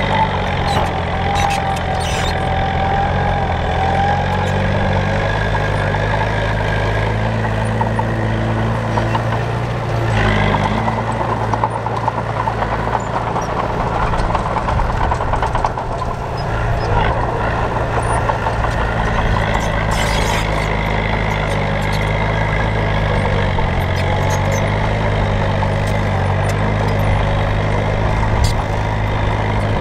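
Heavy diesel earthmoving machinery running steadily under load, its engine pitch rising and falling a little as it works, with a thin high whine above it at times.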